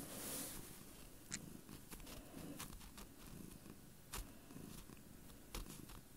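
Domestic tabby cat purring steadily close up, with a few light clicks.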